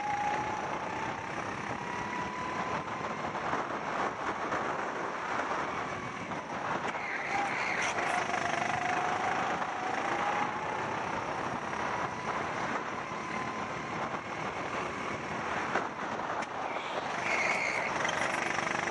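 Rental go-kart's small engine running hard through a lap, its pitch sagging as it slows and climbing again as it picks up speed, twice in this stretch. Wind rush over the helmet-mounted microphone runs under it.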